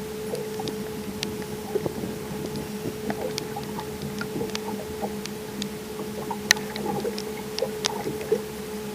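Bass boat on the water: a steady motor hum, with irregular small splashes and clicks of water slapping against the hull.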